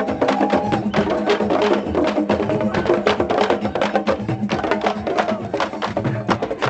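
A drum group playing large wooden barrel drums, each struck with a stick in one hand and the bare palm of the other, in a fast, dense rhythm of sharp strokes.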